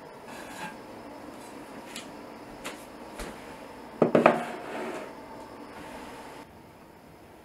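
A cut-glass bowl set down on a countertop about four seconds in: a couple of sharp knocks with a brief ring. Lighter clicks and rubbing come before it.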